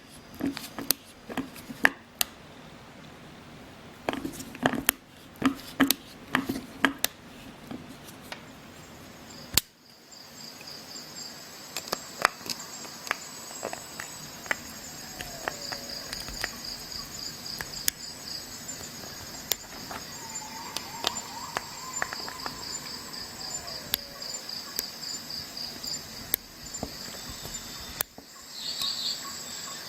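Sharp clicks and snaps of a Swiss Army knife's tools being handled, thickest in the first few seconds. From about a third of the way in, insects trill steadily in the background.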